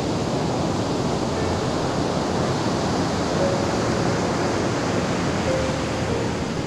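Ocean surf breaking on the shore: a steady, even rush of noise.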